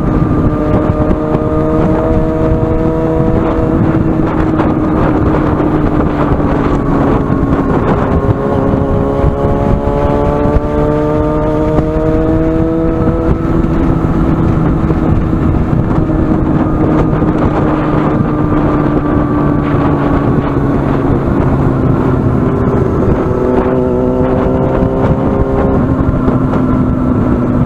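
Yamaha FZ6N inline-four engine through an aftermarket carbon-fibre exhaust, heard from onboard while riding. The engine note climbs and falls with the throttle, with sudden drops in pitch several times, over a steady rush of noise.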